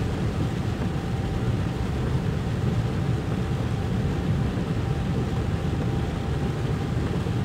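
A car driving, heard from inside the cabin: a steady low rumble of engine and tyres on a flooded road, with a constant hiss over it.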